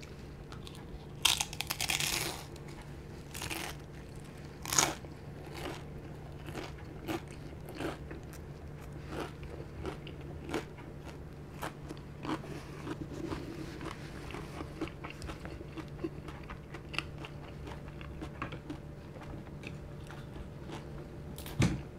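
Someone biting into and chewing a deep-fried prawn dumpling. The crisp fried wrapper gives loud crunches in the first five seconds, then many softer crunches as it is chewed, with one more loud crunch near the end. A steady low hum runs underneath.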